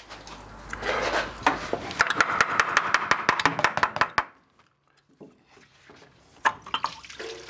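Hand tools working at the front of an engine: a few scattered knocks, then a fast run of sharp clicks, about nine a second, for about two seconds, and a couple of single knocks near the end.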